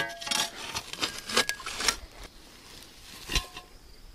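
Digging and handling in soil and grass roots: a string of short scrapes, rustles and crunches as a small rusty steel wheel rim is worked loose and lifted out of the hole. A brief metallic clink rings right at the start.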